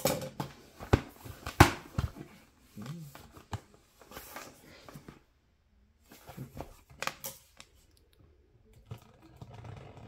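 A drone box and its packaging being opened and handled: a few sharp clicks and snaps in the first two seconds, the loudest about a second and a half in, among rustling. After a brief pause past the middle, more rustling and a couple of clicks.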